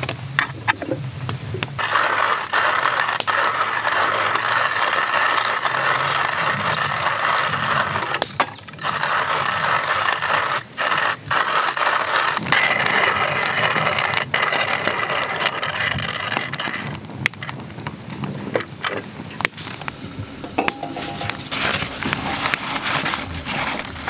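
Kalita hand-cranked coffee mill grinding coffee beans: a steady, gritty crunching from the burr with a few brief breaks. It thins to lighter, scattered clicks over the last several seconds.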